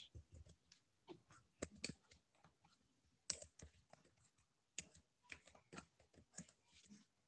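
Faint computer keyboard typing: irregular clusters of key clicks.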